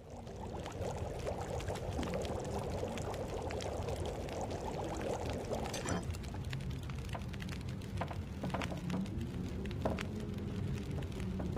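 A pot of stew bubbling as it cooks, a steady burble with scattered sharp pops, fading in at the start.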